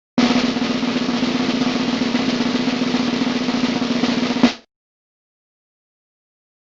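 Snare drum roll lasting about four seconds, ending with one accented hit: the stock drum-roll sound effect.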